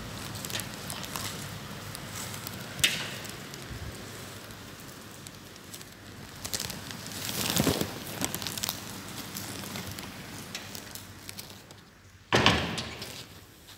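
Rain pattering, a dense crackle of small drops, with a few louder knocks and a sudden louder rush of noise near the end.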